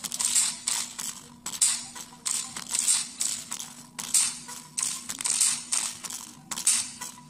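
Small 4-ohm speaker driven by a single 2N2222 transistor amplifier playing audio from a phone, in rhythmic pulses about twice a second. Two loose transistors lying on the speaker cone rattle with each pulse.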